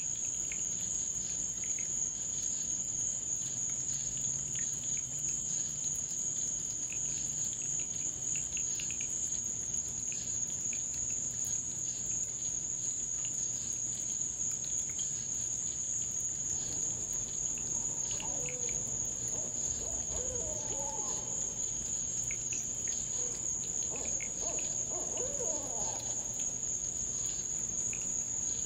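Night insects chirring in one steady, unbroken high-pitched drone. Faint warbling calls come in lower down over the second half.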